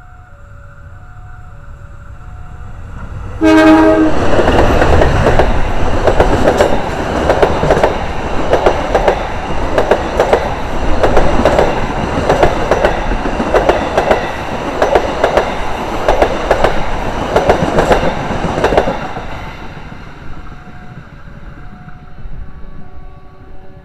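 Level-crossing warning bell ringing its alternating two-note chime while a passenger train's rumble grows. About three and a half seconds in the locomotive's horn sounds and the train passes close by, its wheels clacking in a steady rhythm for some fifteen seconds before the noise fades and the crossing bell is heard again near the end.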